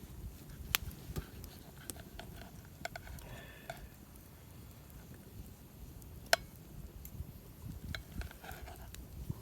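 Cutlery clicking and clinking on a camp plate, with a few short ringing notes, over a low rumble of wind on the microphone. One sharp knock about six seconds in is the loudest sound.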